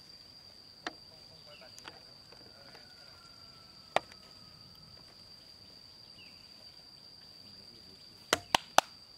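Hammer strikes on wooden planks: a light knock early, one sharp blow about four seconds in, then three quick blows near the end. A steady high insect drone sounds underneath.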